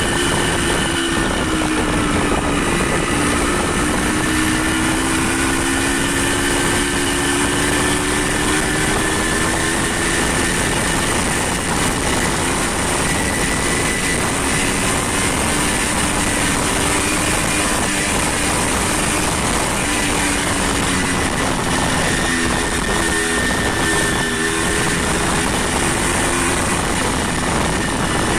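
A motor vehicle's engine running steadily, its hum drifting up and down in pitch, under a loud, even rush of wind and road noise.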